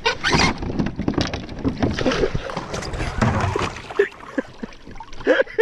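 Water sloshing and gurgling around a kayak, with repeated short knocks and bumps.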